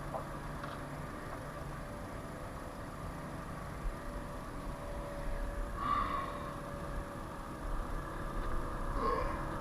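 Steady low hum of a vehicle engine idling, with a few faint short sounds about six and nine seconds in.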